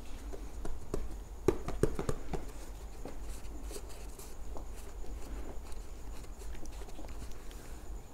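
Hands pressing and rubbing a rubber pad against an electric unicycle's hard plastic shell, with a quick cluster of sharp taps and knocks about one and a half to two and a half seconds in. A low steady hum runs underneath.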